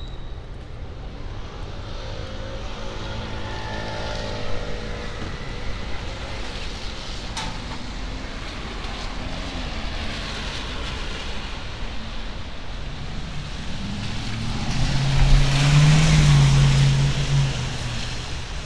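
Street traffic on wet pavement: cars passing with tyre hiss on the wet road. Near the end, a louder vehicle passes close by with a low engine drone.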